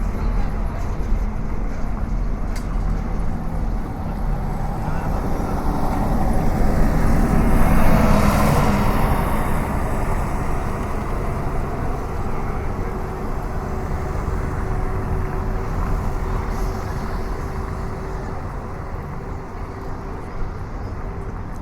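City street traffic: a steady rumble of road vehicles, with one vehicle passing close by, swelling about a third of the way in and fading away. A steady engine-like hum holds through the second half.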